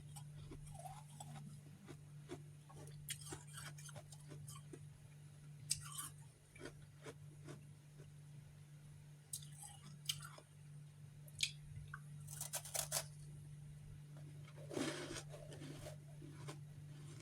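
Close-up crunching and chewing of refrozen freezer frost chunks, in irregular bursts of crisp crunches with pauses between bites.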